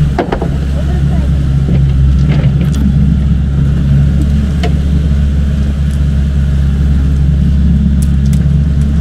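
Outboard motor of a 150 hp fishing boat running steadily at low revs, a constant low hum, with a few light knocks and clicks from tackle and boat fittings.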